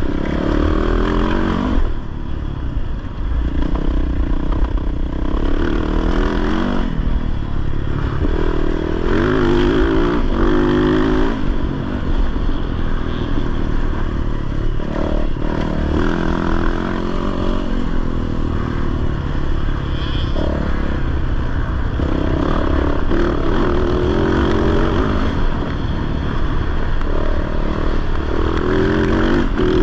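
Off-road race motorcycle engine under hard riding, revving up in surges of a few seconds each and dropping back between them as the rider accelerates, shifts and rolls off.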